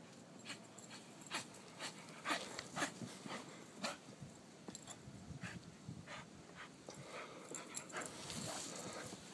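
A dog bounding through deep snow and panting, with a run of short crunching sounds at an uneven pace of a few a second, loudest about two to three seconds in.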